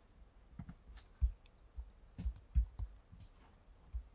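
Scattered computer keyboard taps and clicks, each with a dull thump carried through the desk. They come irregularly, the loudest about a second in and around two and a half seconds in.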